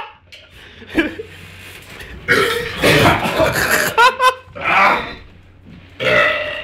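A man belching loudly several times in a row, with some laughter in between.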